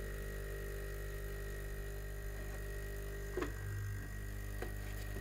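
DeLonghi EC220 espresso machine's vibratory pump running with a steady buzz, straining to prime the empty system after a long idle and not yet drawing water. Two knocks, about three and a half seconds in and near the end, as hands handle the machine.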